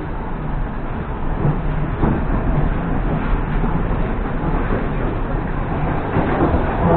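Steady running noise of an EP2D electric multiple-unit train heard from inside a passenger car: an even rumble of the wheels and running gear with a low hum.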